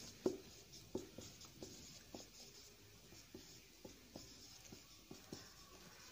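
Marker pen writing digits on a whiteboard: faint short taps and light scratching of the felt tip, about two strokes a second, as each numeral is drawn.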